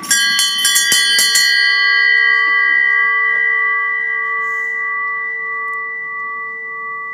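Small wall-mounted brass bell rung by tugging its clapper cord: a quick run of clanging strikes in the first second and a half, then a long clear ring that slowly fades with a gentle pulsing waver. It is the end-of-treatment bell, rung to mark the end of cancer treatment.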